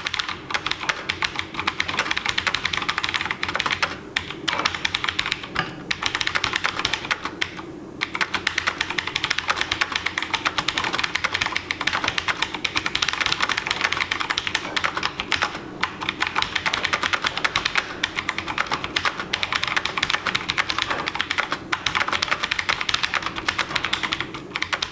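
Fast, continuous typing on a TVS Gold Bharat USB mechanical keyboard with Cherry MX Blue switches: a dense stream of keystrokes, broken by a few short pauses.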